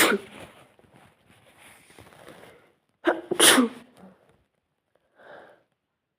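A person sneezing on purpose, the sneezes brought on deliberately: one sneeze ending right at the start, then about three seconds in a short 'ha' intake followed by a sharp, loud 'choo'. A faint breath follows about two seconds later.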